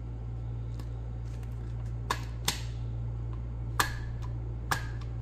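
Plastic teeth of a toy crocodile dentist game pressed down one by one, a handful of short sharp clicks a second or so apart, over a steady low hum.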